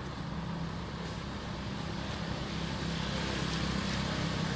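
Steady low rumble of a motor vehicle engine running, with traffic noise that grows a little louder in the second half.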